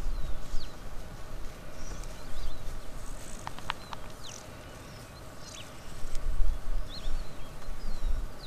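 Plains zebras stepping and moving about on dry, dusty ground, heard as low thuds and rumble that come and go, with small birds chirping in short calls throughout.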